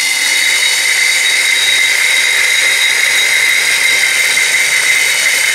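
Corded electric drill running steadily with a 25 mm diamond hole saw held at an angle against a glazed ceramic pot, scoring the surface to start a hole: a steady high-pitched whine over a hiss.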